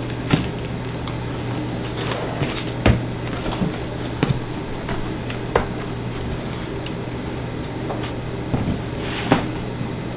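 A utility knife slits the packing tape on a cardboard box, then the cardboard flaps and an insert are opened and handled, with several sharp knocks and scrapes. A steady low hum runs underneath.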